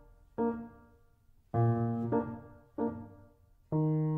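Background music on a keyboard: chords struck one after another, each starting sharply and fading away, about five in four seconds.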